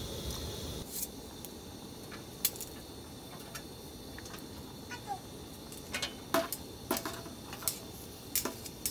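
Metal tongs clicking and tapping against a stainless steel pot and a wire basket as meat and bean sprouts are added to the pot: scattered sharp clicks, more frequent in the second half, with a couple of short falling squeaks.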